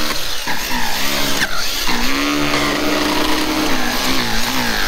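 Arrma Kraton EXB RC monster truck's brushless motor, run on 8S, whining as the throttle is worked, its pitch dipping and rising, then holding steady for a second or so in the middle before wavering again.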